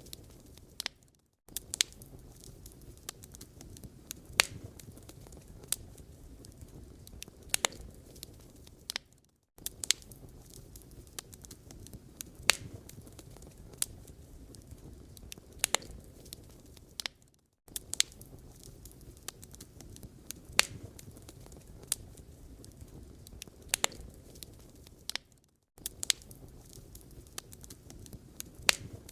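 Wood fire in a fireplace crackling, with irregular sharp pops over a low steady rumble. The sound cuts out briefly four times, about every eight seconds, as the recording loops.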